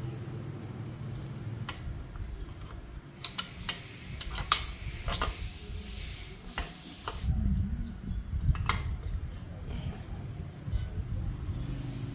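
Light clicks, taps and rubbing of small metal parts as a miniature hydraulic cylinder and its pivot pin are handled and taken off an RC bulldozer's blade mount, over a low steady hum.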